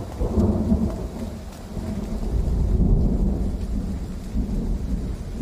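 Steady rain with low rolling thunder that swells and eases.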